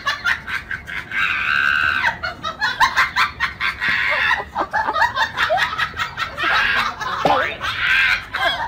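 A man screaming and cackling with laughter: three long high-pitched shrieks with choppy bursts of laughter between them.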